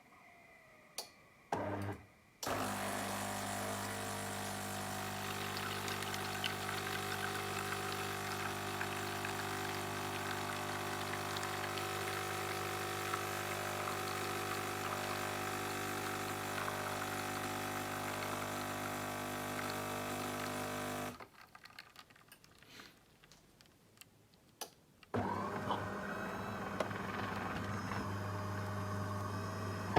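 DeLonghi automatic coffee machine running a brew cycle: a few clicks, then a steady motor hum for about twenty seconds that stops suddenly, and a second steady hum starting about 25 seconds in. It runs without the rattling and grinding noise, cured by a new lift gear nut in the brew unit.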